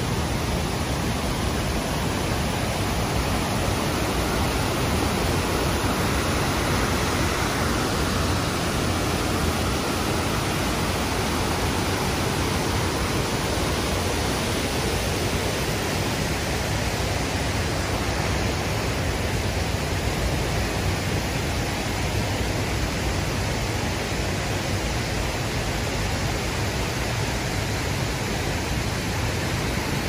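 Akerselva river rushing over rapids and a small waterfall: a loud, steady rush of falling water.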